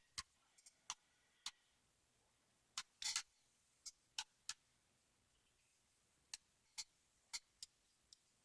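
Faint, scattered small clicks and ticks, about a dozen spaced unevenly, from a screwdriver and small metal parts as the Phillips screw is backed out of a padlock's shackle.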